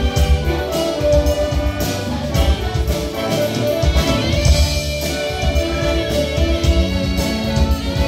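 Church brass band playing, trumpets leading over low brass, with a steady low beat underneath.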